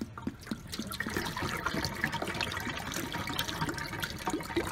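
Hot water pouring out of an upturned plastic soda bottle into a stainless steel sink, a steady splashing. The bottle is being emptied so that only hot water vapour is left inside before it is capped.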